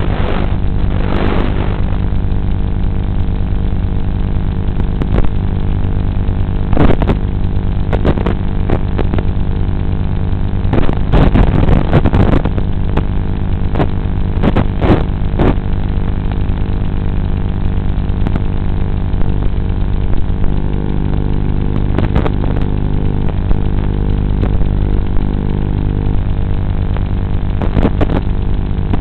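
A 5-inch FPV racing quad's motors and Gemfan 5152 propellers running in flight, heard as a steady, muffled buzz through the onboard camera's analog audio link, with several sudden crackles of radio interference.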